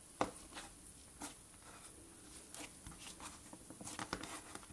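Cloud slime being poked and stretched by hand, giving off scattered soft crackles and sticky clicks, with a denser run of crackling near the end as it is pulled apart.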